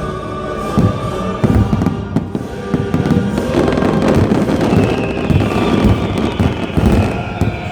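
Fireworks going off in rapid, overlapping bangs and crackles, over orchestral show music from loudspeakers.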